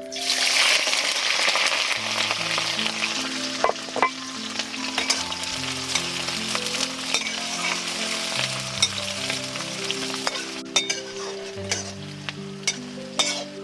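Food sizzling in hot oil in a pan, the sizzle starting suddenly and loudest at first as the ingredients go in, then frying on while being stirred, with sharp clicks of a utensil against the pan.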